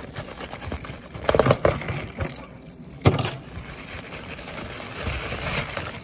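Plastic shipping mailer being handled and opened: rustling and crinkling, with louder crackles about a second and a half in and again about three seconds in.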